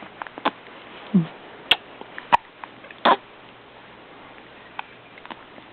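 Baby hiccupping: a few short, sudden hiccups in the first three seconds, with small breathing and mouth sounds between, then quieter.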